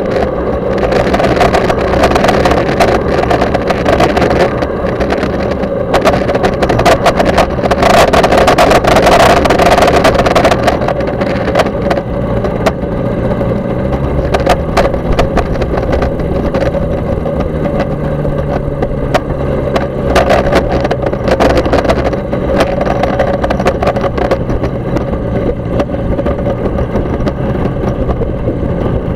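Kolb Mark III ultralight's engine running as the aircraft rolls along the runway and taxis, with bursts of wind noise on the microphone. The engine is louder for the first ten seconds or so, then settles lower.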